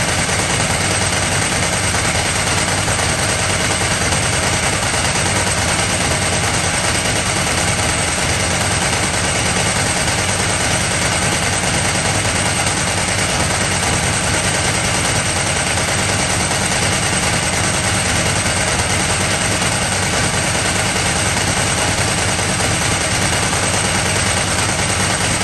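Ducati 998 Testastretta's 998 cc L-twin engine running steadily at a constant speed with a loud mechanical rattle.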